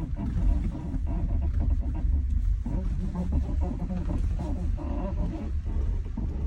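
Tesla Model Y interior creaking and squeaking in repeated short bursts while driving, over a steady low road rumble.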